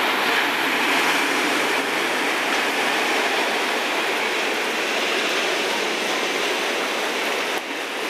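Ocean surf breaking and washing up the beach, a steady rushing hiss.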